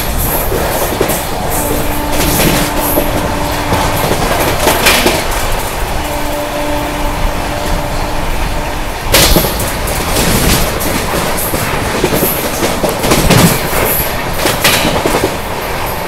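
Dakshin Express passenger train running at speed, heard from an open coach door: a steady loud rumble of wheels on the rails with rushing air. A faint steady tone rises above it twice, and the noise surges suddenly about nine seconds in.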